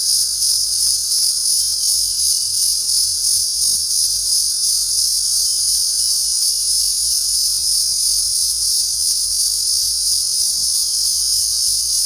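A dense chorus of singing insects: a steady, high-pitched shrill with a fine, fast pulse that never lets up.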